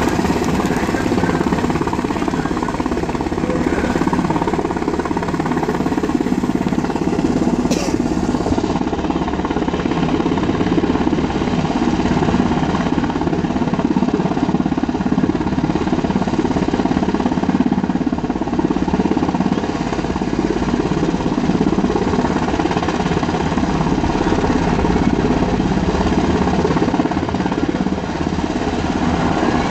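UH-60 Black Hawk helicopter hovering close by, its rotors beating in a loud, steady, rapid chop.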